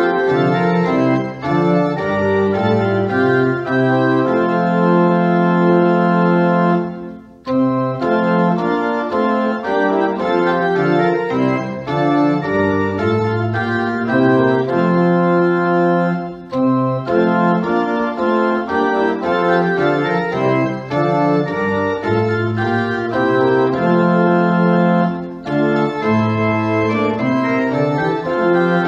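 Organ playing slow held chords in phrases, with short breaks between them, the clearest about seven seconds in.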